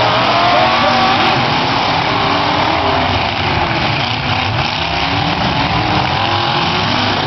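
Several demolition-derby cars' engines revving together over a dense, loud mix of engine and exhaust noise, their pitches rising and falling as the drivers gun them around the dirt arena.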